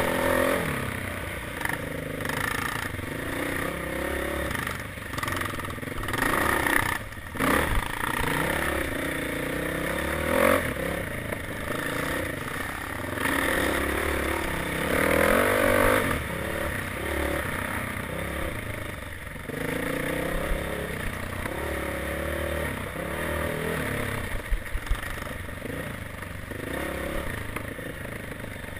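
Off-road dirt bike engine being ridden, its revs rising and falling with the throttle, with clatter and scraping from the bike over rough ground and a sharp knock about seven seconds in.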